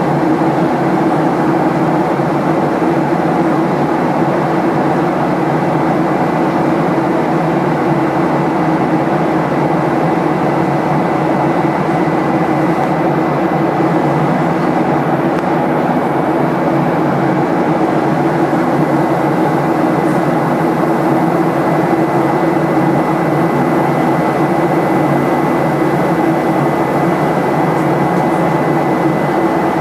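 Steady cabin noise inside a Boeing 737-800 in flight: a constant rush from its CFM56 jet engines and the airflow, with a low hum and a thin, steady high whine.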